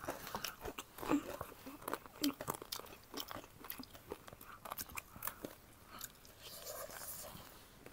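Close-up crunchy chewing of chatpate, a puffed-rice snack, with many irregular sharp crunches and small mouth sounds.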